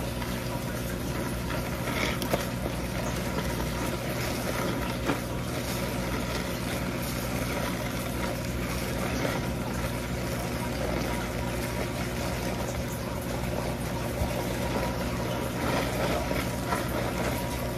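Steady mechanical hum with a rushing, water-like noise, and a few soft squelches from hands scrubbing shampoo lather through wet hair.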